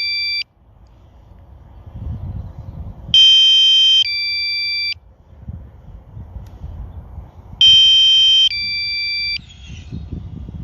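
Mavic Mini low-battery warning alarm: an electronic two-tone beep, a higher tone then a lower one, each just under a second, repeating about every four and a half seconds to signal that the drone's battery is low. A low rumble fills the gaps between the beeps.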